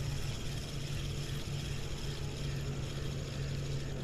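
Steady low machine drone, unchanging in pitch, over an even background hiss.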